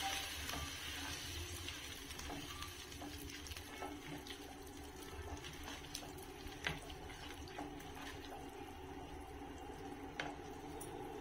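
Onion-tomato masala simmering in a nonstick pan while a plastic spatula stirs it, giving a handful of scrapes and taps against the pan at irregular moments. A steady faint hum runs underneath.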